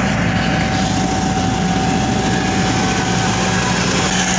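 Diesel engine of a road roller running steadily as it compacts fresh asphalt.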